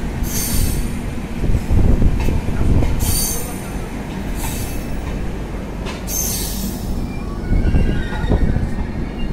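Indian Railways LHB passenger coaches rolling slowly past on the next track as the express arrives: a steady low rumble of wheels on rail, broken several times by short, high wheel squeals.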